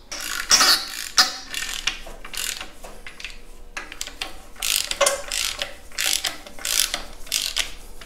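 Hand socket ratchet wrench clicking in short bursts of strokes as bolts are run down and snugged, with a pause about halfway through.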